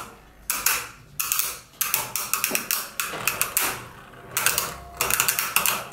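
Two Beyblade Burst spinning tops clashing in a plastic stadium: runs of rapid plastic clicks and clacks as they strike each other, broken by short quieter spells.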